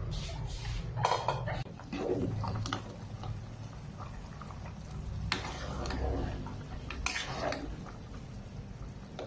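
Metal ladle stirring pork ribs and taro in an aluminium soup pot, scraping and clinking against the pot, with two sharp clinks in the second half, over a low steady hum.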